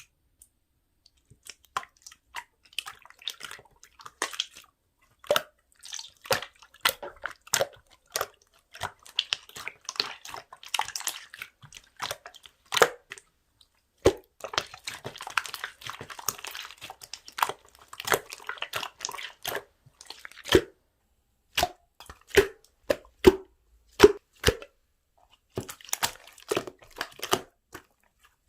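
Slime being squeezed and stretched by hand: a string of sharp, wet clicks and pops from trapped air, with crackly squelching stretches in between.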